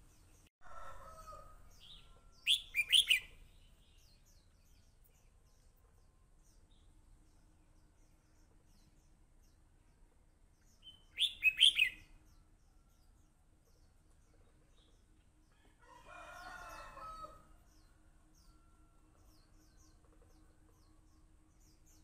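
Red-whiskered bulbul singing two short bursts of loud, sharp notes about nine seconds apart. Between them come two fainter, lower, longer calls from another bird, over a steady faint hum.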